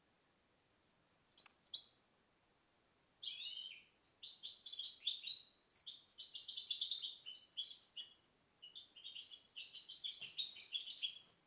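Goldfinch hybrid ('mixto', a goldfinch crossed with a canary) singing. A short chirp or two comes first; from about three seconds in, it sings long runs of quick, repeated high twittering notes in several phrases with brief pauses between them.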